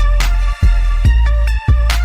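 Electronic background music. A heavy, steady bass drops out briefly about once a second under a stepping synth melody, with sharp drum hits.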